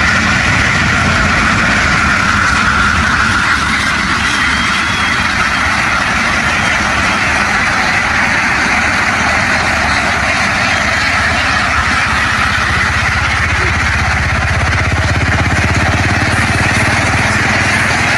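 An engine running steadily, its low hum growing stronger about three-quarters of the way through.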